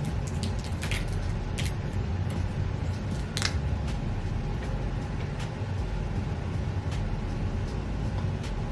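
Close-up eating sounds of a dark chocolate peanut butter cup: chewing with scattered sharp clicks and crinkles, one stronger click about three and a half seconds in.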